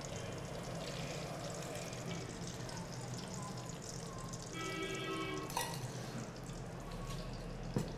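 Cooking oil poured in a thin stream from a steel jug into a steel kadai, a steady trickling, with a sharp click a little past halfway through.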